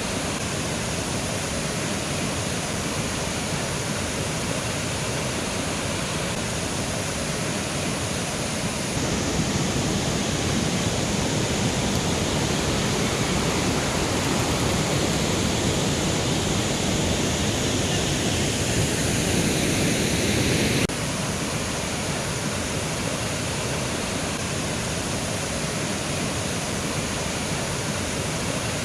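Mountain river rushing steadily over rocks. It swells louder about a third of the way in, then drops back suddenly about two-thirds through.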